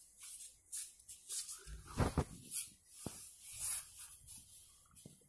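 Scattered rustles and light knocks of a phone being handled and swung around, with a dull thump about two seconds in and a couple of light taps later.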